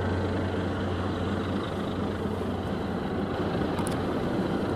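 Steady rumble of ship engines working across the water, with a low hum that fades out about a second and a half in.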